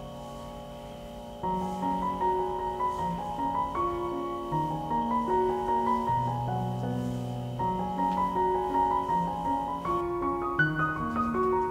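Instrumental background music: a melody of held notes over a moving bass line, growing louder about a second and a half in.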